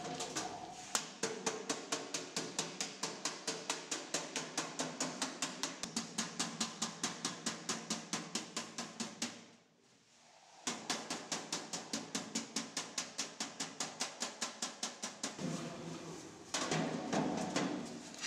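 Ball-peen hammer striking a galvanized sheet-metal stove box in a fast, even run of light blows, about five a second. The blows stop briefly about halfway, start again, and near the end give way to a louder clatter of sheet metal.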